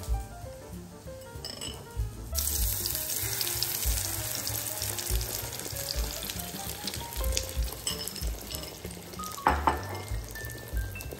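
Beaten egg poured into a hot frying pan of zucchini, hissing and sizzling as it hits the pan from about two seconds in, then slowly dying down. A short clatter sounds near the end, over background music.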